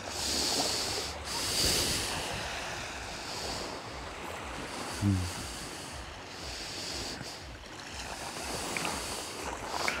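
Small sea waves washing onto the shore, swelling and ebbing every second or two, with wind rumbling on the microphone. A short low sound falling in pitch about halfway through.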